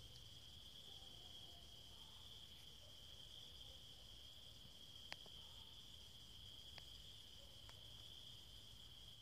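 Faint, steady trilling of crickets, one unbroken high note held throughout, with a few small ticks, the clearest about halfway through.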